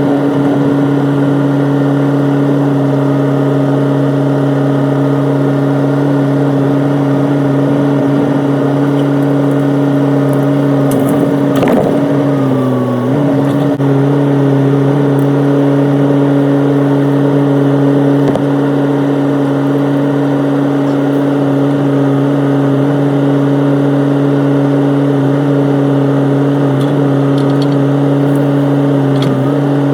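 Excavator's diesel engine running steadily at working speed. About twelve seconds in there is a crunch and crack of debris breaking, and the engine note dips briefly under load before recovering.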